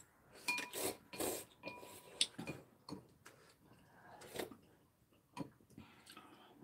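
Ramyun noodles slurped in a few short bursts in the first second and a half and again later, with metal chopsticks and spoons clinking against ceramic bowls.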